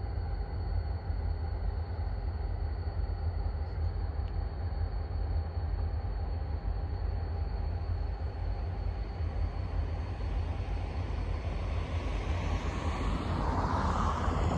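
Steady low rumble of a freight train led by three EMD GP39-2 diesel locomotives approaching slowly, with the noise growing louder over the last few seconds as it draws nearer.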